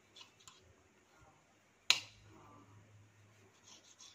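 A kitchen knife cutting soft white bread slices on a granite countertop: faint light ticks, then one sharp click about two seconds in as the blade meets the stone. A low steady hum follows the click for about a second and a half.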